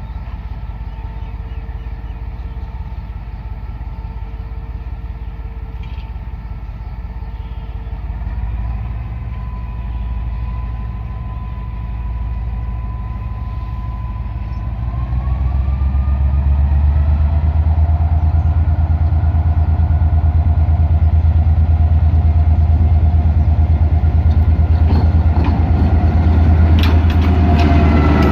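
Diesel-electric locomotive engine running as the locomotive rolls slowly up and passes close by, a steady low drone. About halfway through the engine grows much louder with a rising whine. Near the end, sharp clanks of the wheels on the rails.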